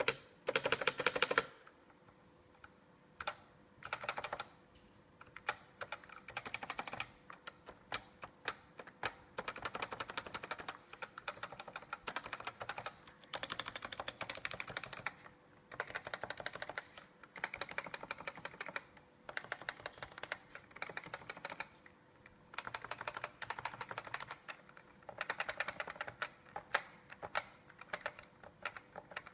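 Keys on a Topre Typeheaven keyboard with 45 g electrostatic capacitive switches being pressed, sometimes as single strokes a second or so apart and sometimes in quick runs of typing.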